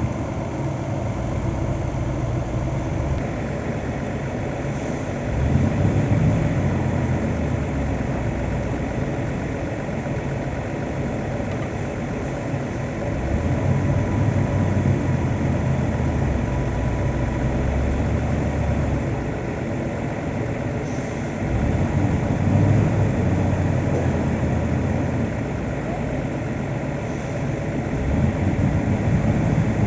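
Heavy construction-machinery engine at a piling site running steadily, growing louder for a few seconds at a time about every eight seconds.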